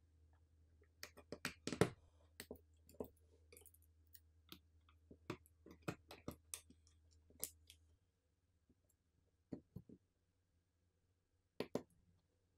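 Scattered small clicks and taps of phone parts being handled and pressed into place as a Google Pixel 9a is reassembled: the motherboard and flex-cable connectors seated into the frame. The clicks come thickly at first and thin out to a few near the end.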